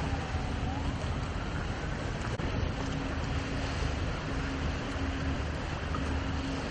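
Wind buffeting the microphone over a steady low rumble, with a faint hum that comes and goes.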